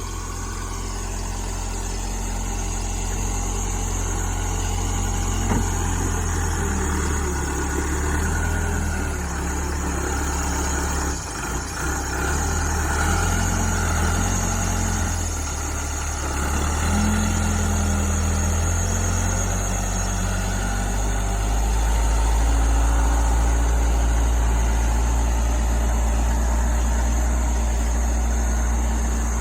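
Backhoe loader's engine running as the machine pushes snow, its note shifting up and down with the load and growing louder about two-thirds of the way through.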